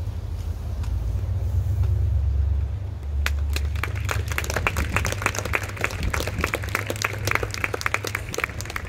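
Audience applauding, starting about three seconds in, over a low rumble of wind on the microphone.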